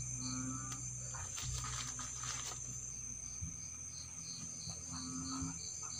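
Night insects: crickets keep up a steady high trill, with a rhythmic chirp repeating about three times a second.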